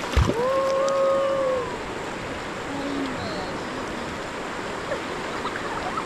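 Rushing river water. About half a second in, a person lets out a long drawn-out wordless yell lasting over a second, and a brief lower voice sound follows near the middle.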